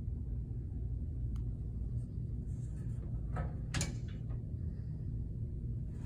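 Steady low hum of a utility room, with a few light clicks and rustles about three and a half seconds in.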